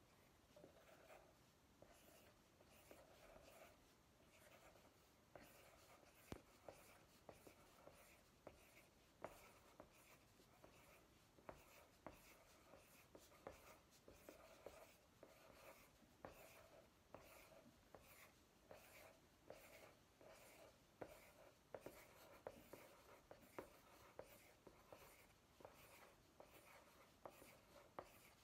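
Pencils scratching and tapping faintly on paper in a quick, irregular run of short strokes as small dots and circles are drawn.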